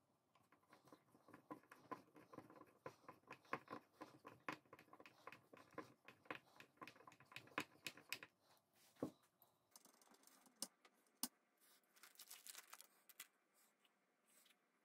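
Faint, rapid, irregular clicking and tapping of a small screwdriver turning the neck-plate screws on an electric guitar body. After about ten seconds the clicks thin out to a few scattered taps, with a brief hiss.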